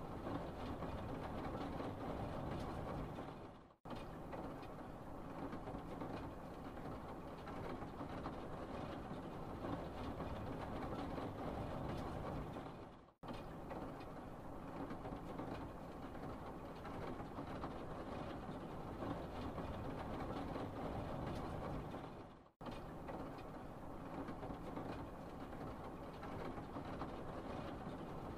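Steady rumbling noise that fades away and cuts back in three times, at even intervals of about nine seconds, like a short background recording played in a loop.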